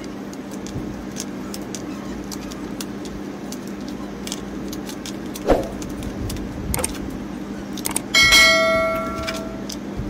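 Small clicks and knocks of hand work on a plastic electrical switchboard over a steady low hum, with one sharper knock about halfway. Near the end a loud bell-like ringing tone starts suddenly and fades over about a second and a half.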